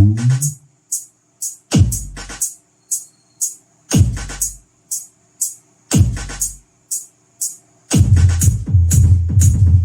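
Electronic dance track with hard kick bass. The full bass line drops out just after the start, leaving sparse high ticks and single deep kick drum hits about every two seconds, each falling in pitch. The dense, heavy bass comes back in near the end.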